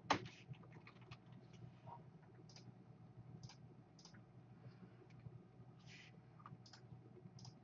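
Faint computer mouse clicks: one sharper click right at the start, then scattered light clicks, over a low steady hum.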